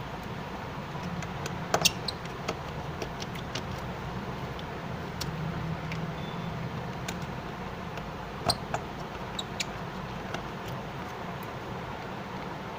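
Scattered small clicks and taps of a precision screwdriver working the tiny screws out of a Redmi Note 5's frame one by one, the sharpest a little under two seconds in and about eight and a half seconds in, over a steady low hum of room noise.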